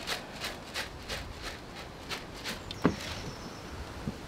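Footsteps on wet wooden decking, short sharp steps about three a second. Near three seconds in there is one brief, louder falling squeak.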